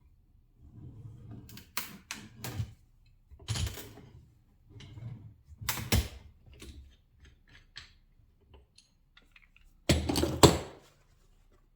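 Irregular metallic clicks, knocks and short clatters from a hand-turned oil filter cutter and a used spin-on oil filter being worked and handled, with the loudest clatter about ten seconds in.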